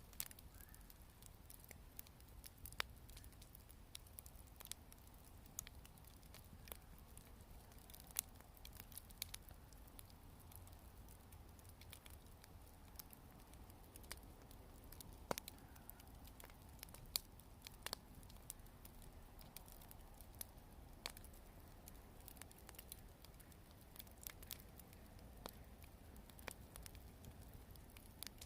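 Wood campfire crackling: sharp, irregular pops and snaps, the louder ones about once a second, over a faint steady background.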